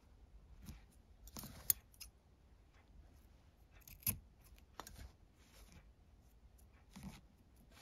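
Scissors snipping the white inner core strands of nylon paracord, a few short sharp snips, the loudest about four seconds in, with faint handling of the cord between.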